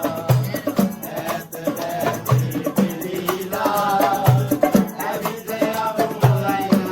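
Background music with a steady beat: a low drum hit about once a second, shaker-like percussion and a melody line.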